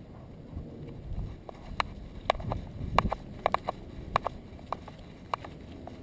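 A small terrier walking on a concrete sidewalk with a GoPro Hero 2 strapped to its back: irregular light clicks and taps from its steps and gear, several close together in the middle, over low rubbing and rumbling from the camera mount as the dog moves.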